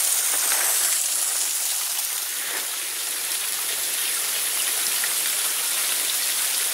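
Small waterfall running steadily: an even, loud rush of falling water.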